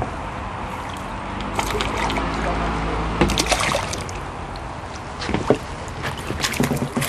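Water splashing and dripping as a hooked crucian carp is brought in at the water's edge, with small knocks from handling the fish and gear.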